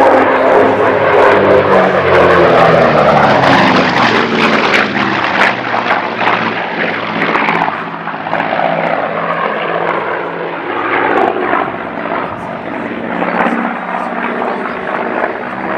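Grumman F7F Tigercat's twin Pratt & Whitney R-2800 radial engines running at high power as it flies past and pulls up into a climb. Loud at first, then somewhat fainter after about eight seconds.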